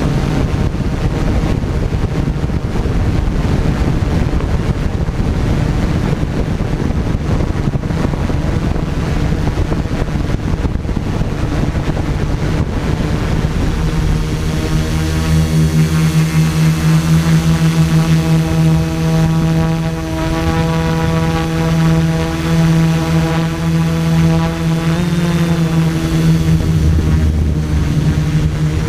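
Multirotor drone's electric motors and propellers droning, picked up by its onboard camera with wind noise over the microphone. The drone steadies into an even, constant-pitch hum about halfway through.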